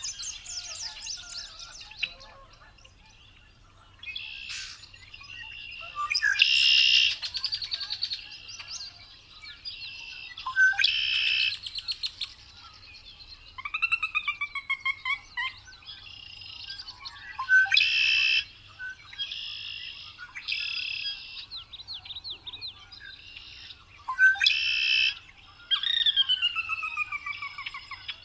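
Male red-winged blackbird singing its buzzy, trilled conk-la-ree song about four times, roughly every six seconds. Short chips and downward-sliding whistled notes fill the gaps between songs.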